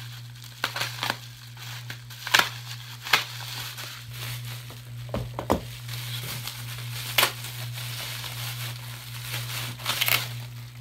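Clear plastic wrapping crinkling and crackling as it is handled and unwrapped, with a few sharper crackles scattered through, over a steady low hum.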